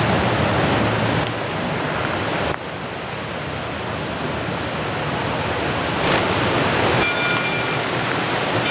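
A loud, steady rush of wind on the microphone mixed with the working 2-8-2 Mikado steam locomotive. From about seven seconds in, its Southern Pacific six-chime whistle sounds in short blasts in the distance.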